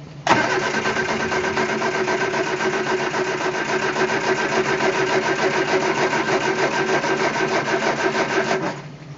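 Starter motor cranking the Triumph Spitfire's four-cylinder engine for about eight seconds with a steady rhythmic pulse, then stopping. The engine cranks but does not catch: a no-start on clogged, half-rebuilt carburettors.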